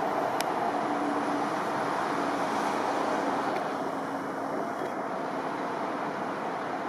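Highway traffic noise: a vehicle passing, louder for the first few seconds and then easing off slightly.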